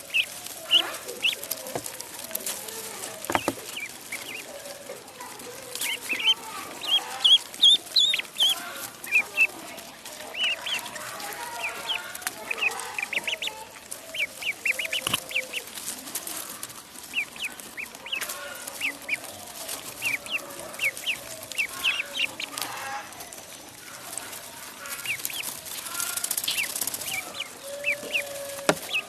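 Ducklings peeping: many short, high-pitched cheeps in quick runs.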